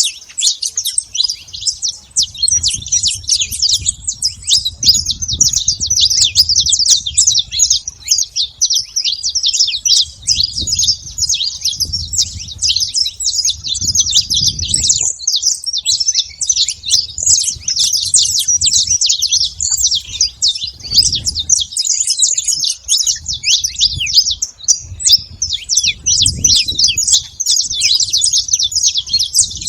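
A flock of saffron finches chirping and singing all at once: a dense, continuous chorus of many overlapping high chirps.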